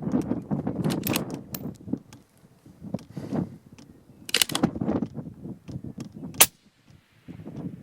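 5.56 rifle shots firing 77-grain OTM rounds: several sharp cracks, the loudest about six and a half seconds in. A low rumbling noise runs between them.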